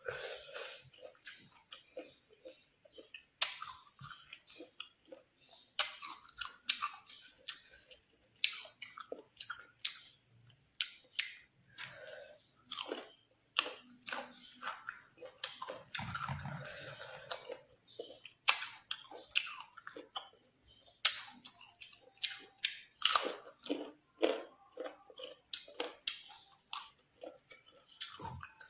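Close-up chewing and crunching of crisp green mango: a run of sharp, irregular crunches and wet chewing clicks.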